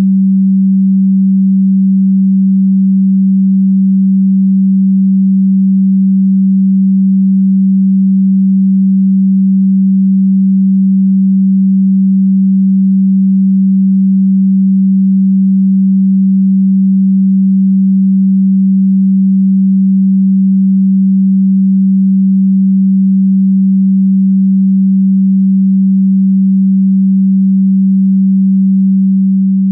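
A loud, low, steady electronic sine tone held at one pitch, with a faint overtone; it begins to fade out right at the end.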